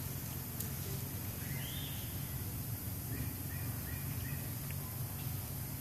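Outdoor ambience: a steady low rumble, with faint high chirps about two seconds in and a few more short ones between three and four and a half seconds.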